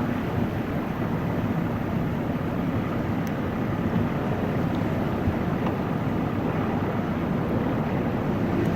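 Steady low rumbling road and wind noise of a vehicle driving.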